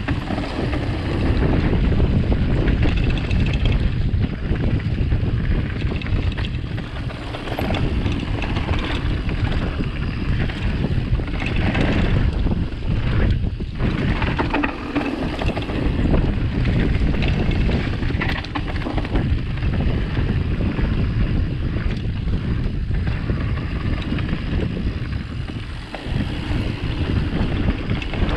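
Mountain bike riding down a rough enduro trail: steady wind buffeting on the camera microphone over a constant low rumble, with irregular clatter throughout.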